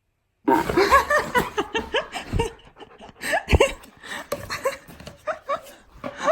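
Husky-malamute cross 'talking' back: a long, loud run of short yowling, grumbling calls that bend up and down in pitch, starting about half a second in.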